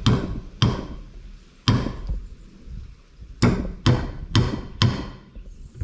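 A hammer driving steel finishing nails into a wooden board: seven sharp blows. Three spaced strikes, a pause of over a second, then four quicker ones.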